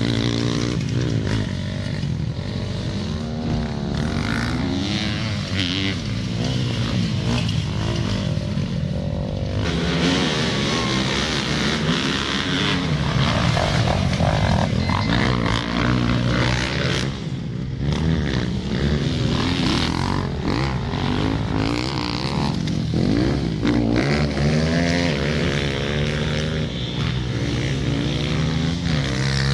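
Several motocross dirt bikes racing past on a dirt track, their engines revving up and down, with the pitch rising and falling as bikes come and go.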